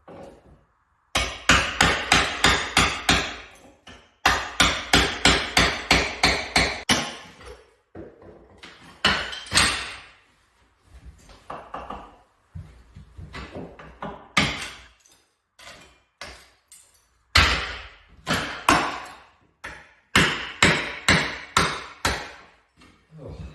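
Hammer blows chipping off old tiles, laid two layers deep. The strikes come in quick runs of about four a second, with short pauses between the runs.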